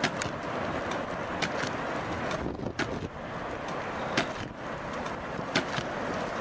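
Steady rushing wind from the storm, with a few sharp clicks scattered through it.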